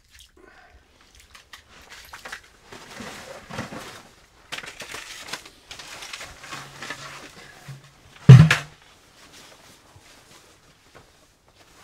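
Rustling fabric and light clattering of a collapsible camp chair's pole frame being pulled out and unfolded, with one sharp, loud knock a little past eight seconds in.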